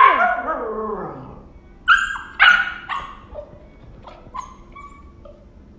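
Husky puppy barking: one long cry that falls in pitch, then three sharp barks about two seconds in, trailing off into a few fainter yips.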